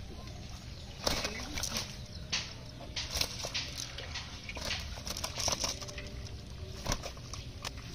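Live fish flopping in a cast net on grass and leaves: irregular flapping slaps and rustles, several close together at times.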